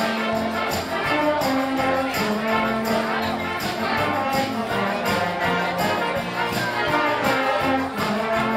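Brass band playing: trumpets and trombones hold sustained notes over a low bass line in a steady beat.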